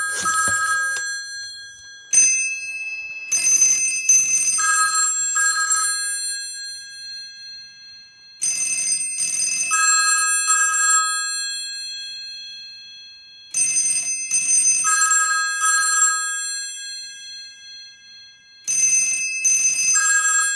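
Mechanical bells of several vintage rotary telephones ringing together off a Panasonic 308 PBX, in the British double-ring cadence: paired bursts of bell ringing repeating about every five seconds, with short gaps between.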